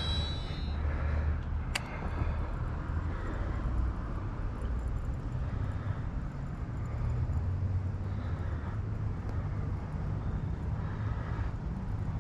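Steady low rumble of distant road traffic. Right at the start, a brief high whine from the mini baitcasting reel's spool as the cast pays out line, and a single sharp click about two seconds in.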